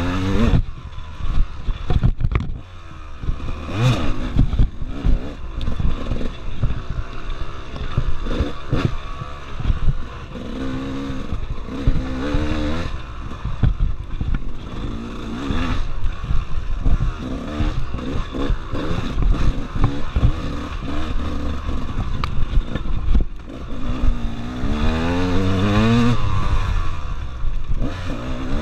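Off-road motorcycle engine revving up and dropping back again and again while riding a tight wooded trail. Its pitch rises and falls repeatedly, with many short knocks and rattles throughout.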